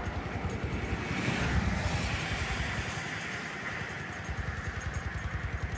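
A small engine running with a rapid, even beat, swelling louder about a second and a half in and then easing back.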